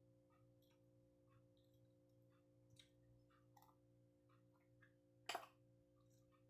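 Quiet eating sounds: a fork and spoon making small clicks and scrapes on a plate, with one louder clink a little past five seconds in, over a faint steady hum.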